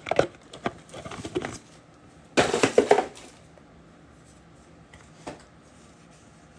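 Trading-card packaging and cards being handled: small rustles and clicks, then a louder crinkling rush about two and a half seconds in, and a single faint tap near the end.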